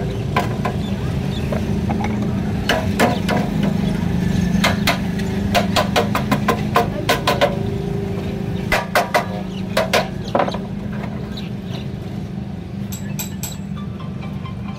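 Irregular sharp metallic knocks and clinks, about fifteen between roughly three and ten seconds in, as a car radiator is handled and shifted on a wooden work platform. A steady low hum lies underneath.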